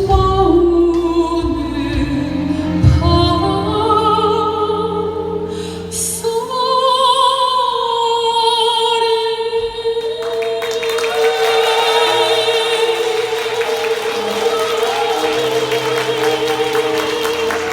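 Soprano singing with musical accompaniment: a few sung phrases, then one long held note with vibrato that lasts about the last eleven seconds.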